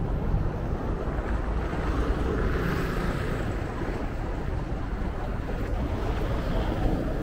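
Wind buffeting the microphone: a steady, rumbling noise without distinct events.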